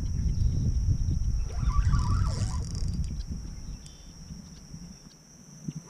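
Wind rumbling on the microphone, fading after about four seconds, with a bird calling about two seconds in.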